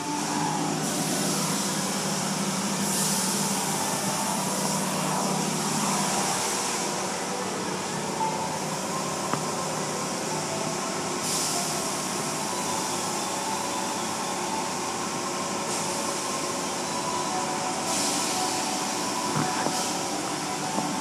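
Automatic car wash heard from inside the car: water spray hissing against the windows and body over the steady running of the wash machinery and brushes. The spray swells in several waves as the jets sweep past.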